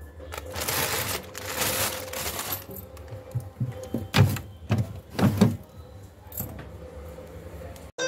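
Things in a fridge-freezer drawer being handled. A rustle of plastic bags lasts about two seconds, then the drawer and its steel bowls knock and clunk several times, loudest around the middle.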